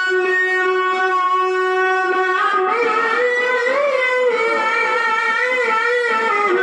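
Male Quran reciter's voice holding one long, steady high note, then about two and a half seconds in moving into wavering, ornamented melismatic runs in the tilawah style.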